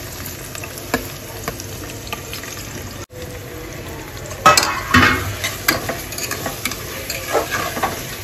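Chopped onions sizzling in hot oil in an aluminium pressure cooker, a steady frying hiss. A spoon stirs them, scraping and knocking against the pot, loudest about halfway through.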